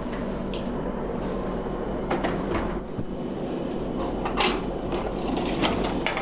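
Steady machine hum with a handful of sharp clicks and clunks, as a snack vending machine is being operated and its packets handled.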